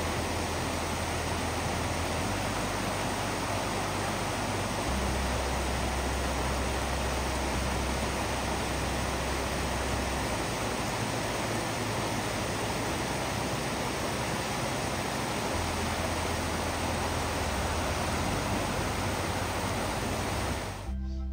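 Creek water rushing steadily, a dense even rush that cuts off abruptly near the end.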